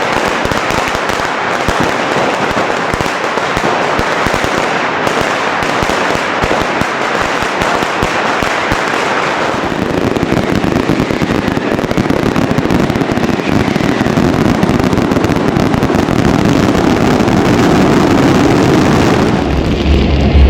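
A dense, loud barrage of firecrackers and fireworks going off in a rapid, unbroken crackle. About halfway through it deepens into a heavier continuous rumble of explosions.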